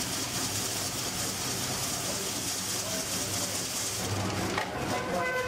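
Hand-cranked ice-shaving machine grinding a block of ice into snow, a steady hiss that thins about four seconds in. A brief pitched sound enters near the end.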